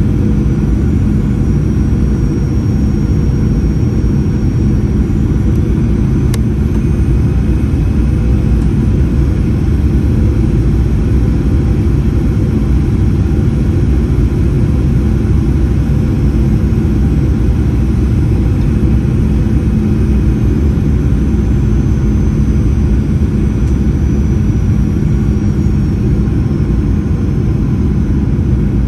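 Steady cabin noise of a Boeing 737-800 in flight: the hum of its CFM56-7B turbofan engines and rushing airflow, a constant low drone with no change in pitch.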